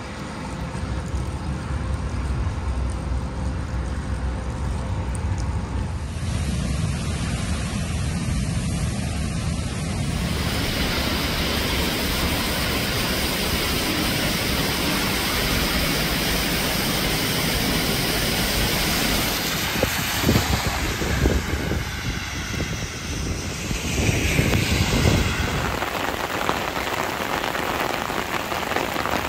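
Steady rushing noise of a heavy rainstorm, with a vehicle driving through flooded road water and louder surges about 20 and 24 seconds in.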